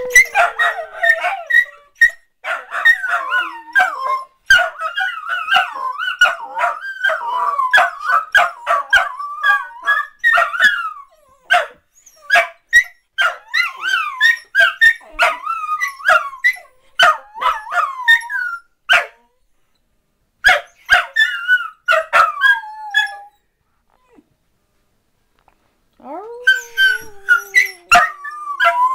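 Dachshunds howling, with many sharp barks and yips mixed in. The howling drops out for a few seconds twice in the second half. Near the end comes one long howl that slides down in pitch.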